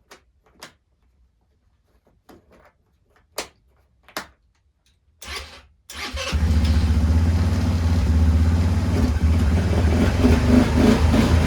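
A few sharp clicks, then a brief starter crank about five seconds in, and the ATV's engine catches and settles into a steady idle.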